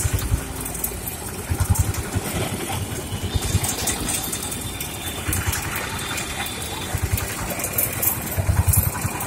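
An engine running steadily amid busy street noise, with scattered clicks and knocks.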